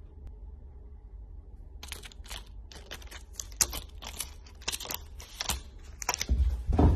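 Thin clear plastic crinkling and crackling in quick, irregular bursts as a kitten bats and bites at it, starting about two seconds in. A louder low thump comes near the end.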